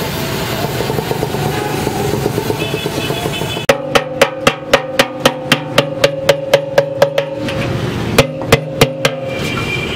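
Steady hiss of a gas welding torch at work for about three and a half seconds. It then gives way suddenly to background music with a steady drum beat of about three strikes a second over held tones, which pauses briefly and comes back for a few more beats near the end.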